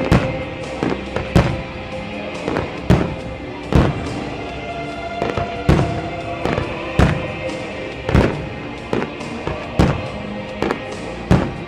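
Fireworks shells bursting overhead, a string of sharp bangs about once a second, over background music played for the display.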